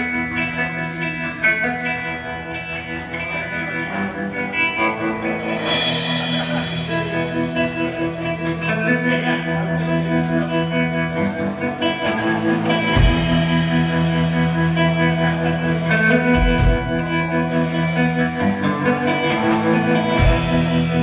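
Blues rock trio playing live: electric guitar, electric bass and drum kit.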